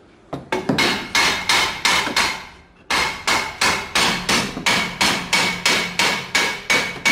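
Steady series of hammer blows on a car's rear brake drum, about three a second with a short pause near three seconds in, each strike ringing metallically. The drum is stuck and is being knocked off the stub axle together with its worn, noisy wheel bearing.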